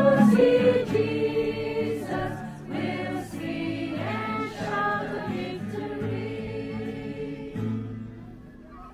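A group of people singing a hymn together, holding notes, with the singing fading out near the end as the song finishes.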